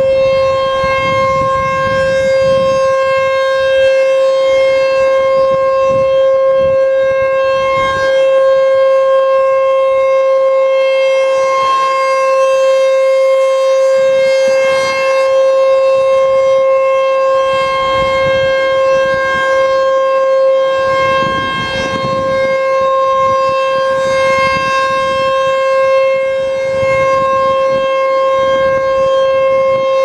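ASC T-128 rotating outdoor warning siren sounding one steady, unwavering tone during a test, its loudness swelling and dipping slightly as the horn rotates.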